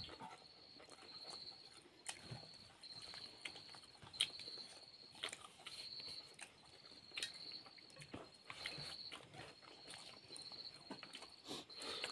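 Quiet eating by hand, soft chewing and smacking with scattered small clicks, over an insect, most likely a cricket, chirping steadily in short high pulses about once a second.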